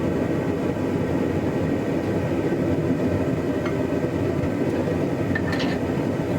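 Blacksmith's forge running with a steady rushing noise while a bar of mild steel heats in it.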